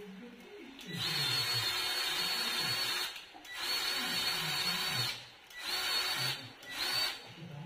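Milwaukee cordless grease gun's motor running in four bursts, two of about two seconds and then two short ones near the end, pumping grease into a bearing's grease fitting.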